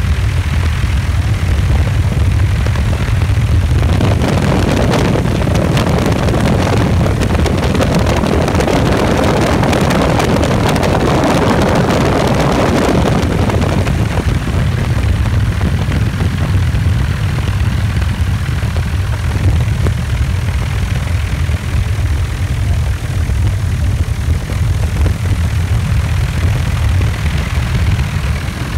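Helicopter engine and rotor noise heard from inside a doorless cabin: a steady low drone, with a louder rush of wind from about four seconds in until about fourteen seconds in.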